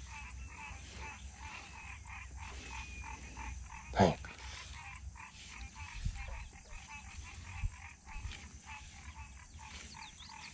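Frogs calling in a steady chorus of quick, repeating croaks.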